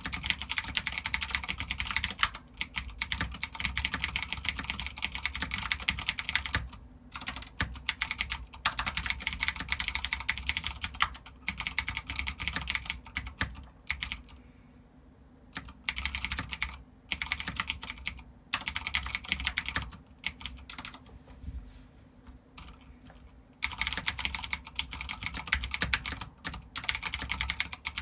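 Typing on a GANSS GK 87 Pro mechanical keyboard with clicky Cherry MX Green switches: fast, dense runs of keystrokes, thinning out to sparser typing with two short pauses in the middle before picking up again.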